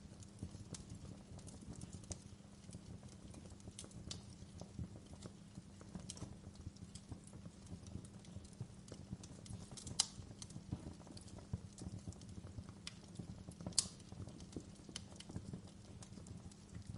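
Wood fire burning in a fireplace: a steady low rumble of flames under irregular sharp crackles and snaps of the burning logs, with two louder pops a little past the middle.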